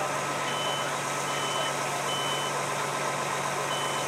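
Smoke alarm sounding its evacuation pattern: three high beeps about a second apart, a pause, then the next group of three beginning near the end, over a steady background noise.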